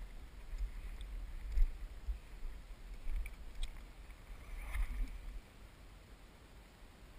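Low, uneven rumble of wind and handling on the camera microphone, with a few faint light knocks, dropping away about five seconds in.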